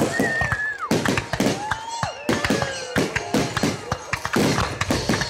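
Aerial fireworks bursting in a rapid, irregular string of bangs and crackles, with several gliding pitched tones over them.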